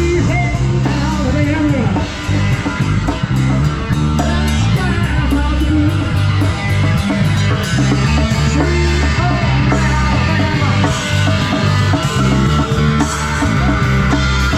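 Live rock band playing with electric guitar, bass, drums and a singer. Steady bass notes change every second or so, under a fast, regular cymbal beat.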